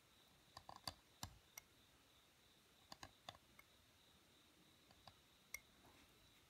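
Faint, irregular clicks and scratches of a steel seal-carving knife chipping into a stone seal face, in small clusters about a second in, around three seconds in and again near the end.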